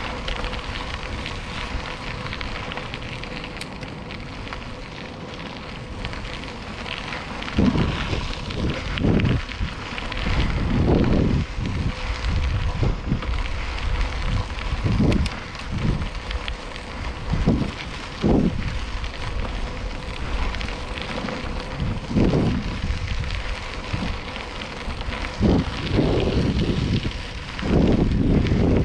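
Wind buffeting the microphone in repeated low gusts over a steady crackling hiss of bicycle tyres rolling on a gravel trail. The gusts start about a quarter of the way in and come every second or two.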